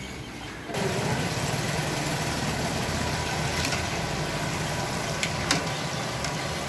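Chicken pakodi deep-frying in a kadai of hot oil: a steady sizzle that starts suddenly about a second in, over a low rumble. A few sharp clicks of the metal slotted spoon against the pan.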